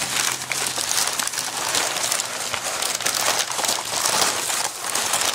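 Brown kraft packing paper crinkling and crumpling continuously as hands push it aside inside a cardboard shipping box.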